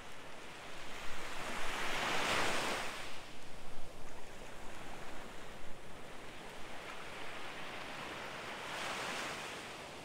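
Gentle sea waves breaking and washing up onto a sandy beach. One louder swash builds and fades two to three seconds in, and a second, smaller one near the end.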